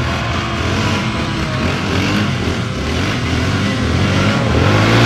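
Sport quad (ATV) engines revving up and down under load as the quads climb and run across soft sand dunes.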